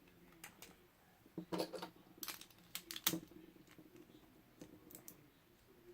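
Faint, scattered clicks and light rattling of small plastic Beyblade top parts being handled.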